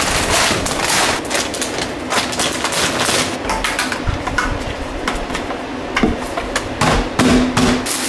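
A busy, uneven clatter of sharp clicks, knocks and rattles from handling the hard plastic spreader hopper fitted to a leaf blower's nozzle. Near the end, salt granules start to pour into the hopper from a bag.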